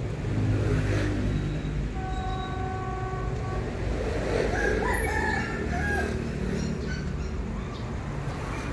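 Diesel locomotive engine rumbling with a short steady horn note about two seconds in, then a rooster crowing around the middle.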